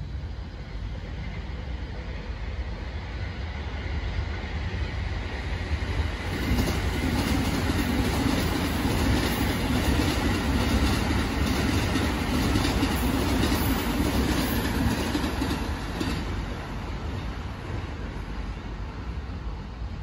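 JR Takasaki Line electric commuter train passing close by. Its rumble builds over the first several seconds, runs loud for about ten seconds with regular clacks of the wheels over rail joints, then fades.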